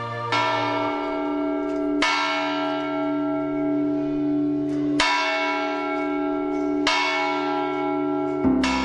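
Church bells in a belfry tolling, about five strokes at uneven intervals. Each stroke keeps ringing and overlaps the next.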